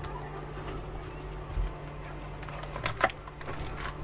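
Food-prep handling with a knife on a wooden chopping board: a dull thump about one and a half seconds in and a sharper knock near three seconds, over a steady low hum.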